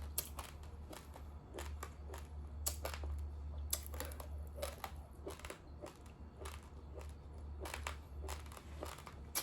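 Raw, uncooked rice grains being chewed and crunched: many irregular sharp crackling clicks, over a steady low hum.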